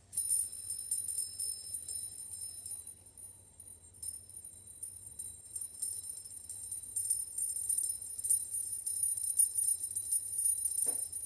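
Stainless steel DJG Whisper Spin linkage fidget spinner set spinning, its linked parts jingling with a high, shimmering ring that keeps swelling and fading.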